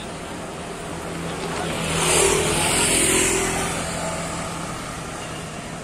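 A motorbike passes close by: its engine grows louder for about two seconds, is loudest two to three seconds in, then fades away.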